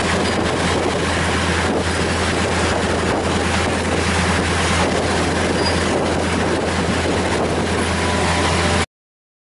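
A passenger train running along the track, heard from inside a carriage at an open window: a steady running noise over a constant low hum. It cuts off suddenly near the end.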